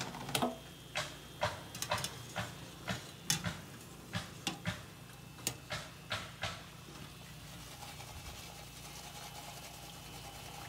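A metal wire skimmer clinks and knocks sharply against the cookware, about fifteen irregular strikes over the first six or seven seconds, while cookie dough fries in hot oil. After that only the steady, quieter sizzle of the frying remains.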